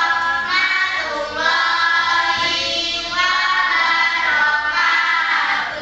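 A group of children singing together, held sung notes carrying through, fading near the end.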